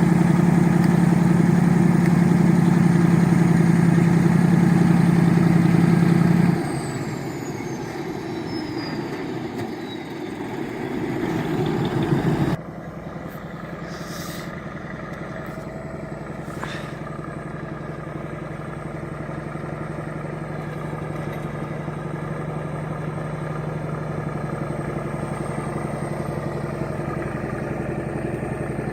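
Heavy diesel engines of tracked bulldozers running, in several clips. The first drone is loud and steady. Then a changed engine sound rises for a couple of seconds, and it cuts suddenly to a steadier, quieter drone.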